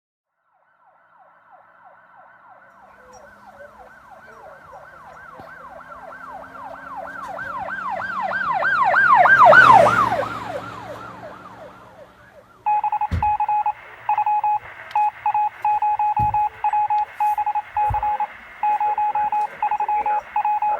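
An emergency vehicle siren wails in quick up-and-down cycles, growing louder to a peak about nine seconds in and then fading with its pitch dropping as it passes. After that, a steady electronic beeping tone sounds, broken by short gaps, with a few low thumps under it.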